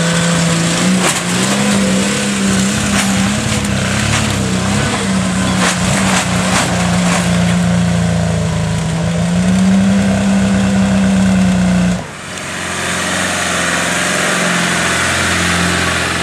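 Land Rover engine revving and labouring off-road, its pitch rising and falling as the driver works the throttle, with scattered knocks and clunks. About twelve seconds in it cuts off abruptly and gives way to a steadier engine note.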